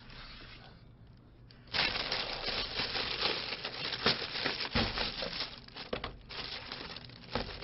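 A thin plastic carrier bag crinkling and rustling as it is untied and pulled open and takeout containers are lifted out of it. The rustling starts about a second and a half in, after a quiet moment, and runs on with a short lull near the end.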